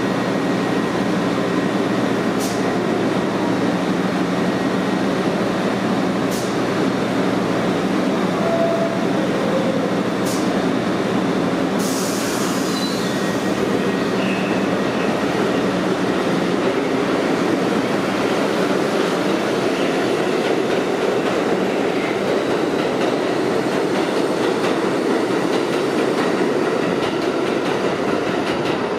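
R62A subway train on the IRT Lexington Avenue Line pulling out of the station and running along the track: a steady loud rumble of motors and steel wheels on rail, with a few sharp clicks in the first half.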